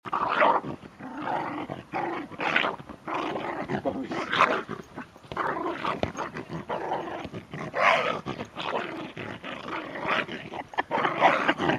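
West Highland white terrier growling and yapping almost without pause as it tussles with a ball in play.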